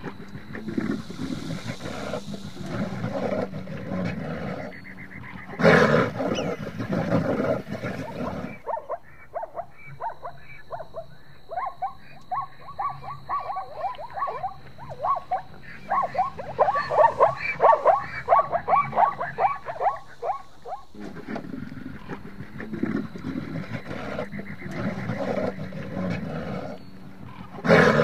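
Brown bear (Caucasian subspecies) growling, with a louder roar about six seconds in. For about twelve seconds after that comes a fast series of short, high calls, given as the Caucasian tur's. Low growling returns near the end.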